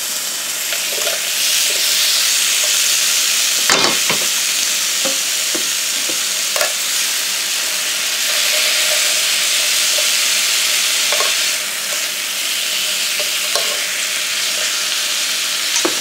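Marinated chicken legs sizzling steadily on the hot ridged plates of a George Foreman contact grill as they are laid down, with a few sharp clicks of metal tongs, the loudest about four seconds in.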